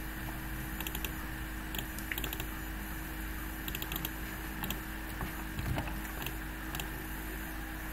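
Scattered clicks of a computer keyboard and mouse, a few at a time, over a steady low electrical hum.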